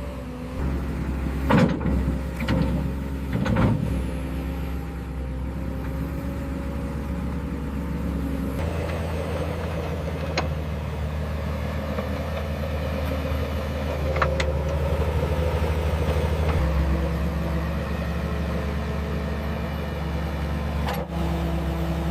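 Heavy construction machinery's diesel engine running steadily, its note changing in steps about 9 and 17 seconds in. Three loud knocks come about two to four seconds in, and a few sharp clicks follow later.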